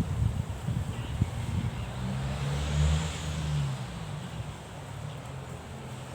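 Low engine rumble with wind on the microphone; a deeper engine note swells about two seconds in, peaks around three seconds and fades away.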